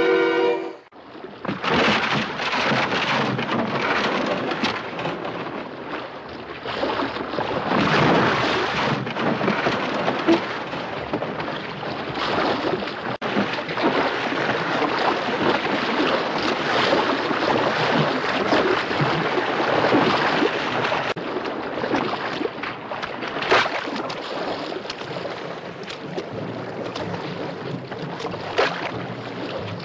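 Music cuts off within the first second, followed by storm wind and rough sea: a steady rushing noise with a few sudden louder surges.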